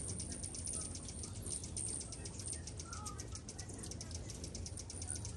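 A crowd of hummingbirds at feeders: a dense, rapid patter of high-pitched chips and chatter, over a steady low hum.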